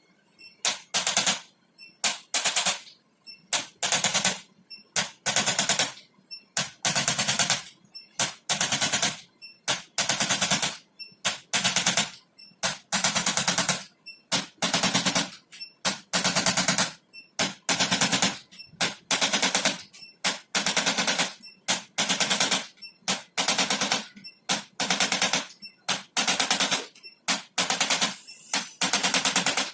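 A handheld electric percussion gun of the kind used for chiropractic adjustments, firing rapid trains of impulses in short bursts of about half a second to a second, one after another with brief pauses between them.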